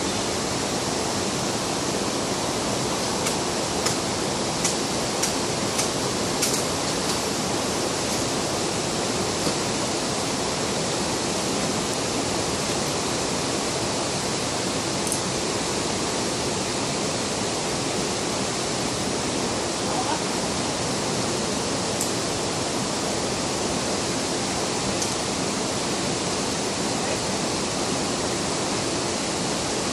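Steady, even rushing noise outdoors, like fast water, with a few faint clicks in the first several seconds.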